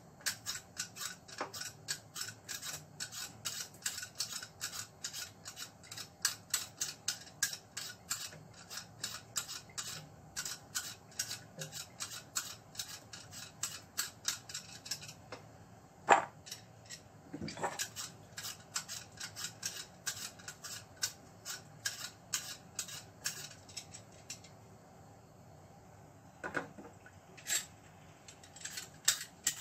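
Handheld vegetable peeler scraping the skin off raw potatoes in quick repeated strokes, about three or four a second. A sharp knock about halfway through is the loudest sound, and the strokes pause briefly near the end.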